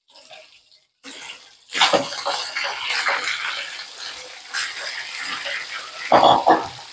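Fish frying in hot oil. The sizzling starts about a second in, swells sharply just before two seconds and crackles on steadily, with a louder burst about six seconds in.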